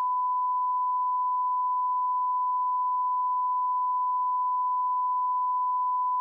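Television test-card line-up tone: one steady, unbroken beep at a single pitch.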